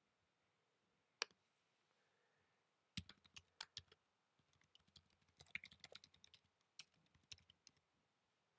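Quiet typing on a computer keyboard: a single click about a second in, then a quick run of keystrokes from about three seconds in until near the end.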